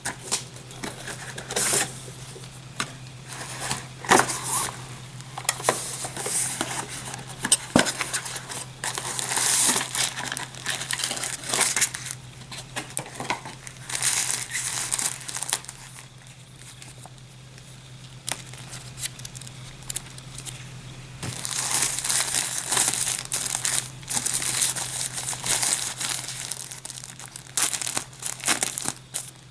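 Packaging being handled: plastic wrap crinkling and rustling, with irregular sharp clicks and taps. It goes quieter for a few seconds past the middle, then the rustling picks up again.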